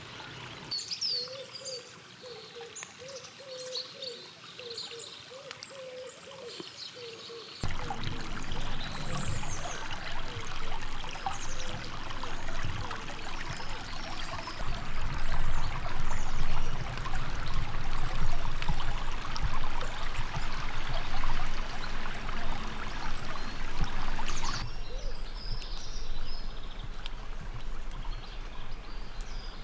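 Small woodland stream trickling and babbling, with birds chirping. For the first several seconds only quieter birdsong is heard, including a run of repeated low calls. The running water then comes in abruptly and falls away again near the end.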